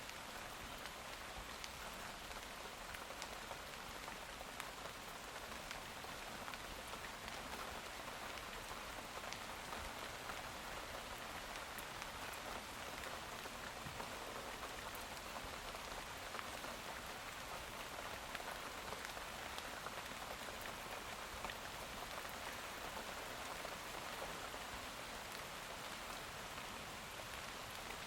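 Steady rainfall: an even hiss of rain with many small drop ticks scattered through it.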